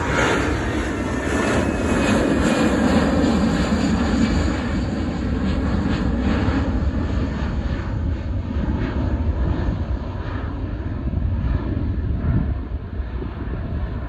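Airplane engines running loud as the aircraft passes; the high hiss fades from about six seconds in while a low rumble goes on.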